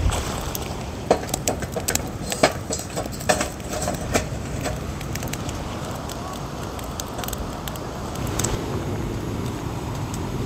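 A series of sharp light clicks and knocks, bunched in the first few seconds, over a steady low rumble.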